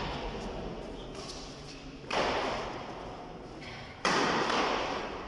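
Badminton racket hits on a shuttlecock, two sharp strikes about two seconds apart, each ringing on through the large hall.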